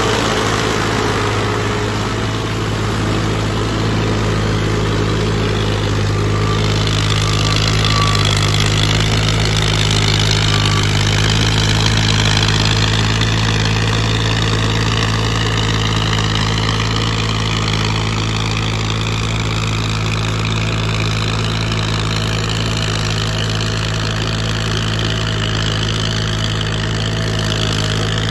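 Massey Ferguson 240's three-cylinder diesel engine running steadily under load as the tractor pulls a cultivator through a flooded field.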